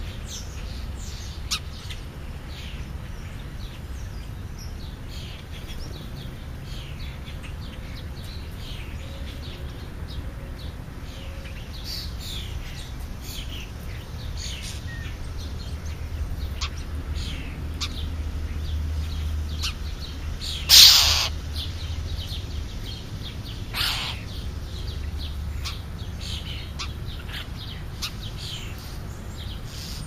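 Many short bird chirps and calls scattered throughout over a low steady rumble. One loud, sudden harsh sound comes about two-thirds of the way in, and a weaker one follows a few seconds later.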